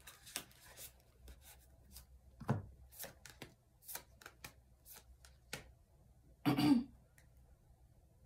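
Tarot cards being shuffled and handled: a run of irregular light snaps and taps, with a louder rustle about six and a half seconds in.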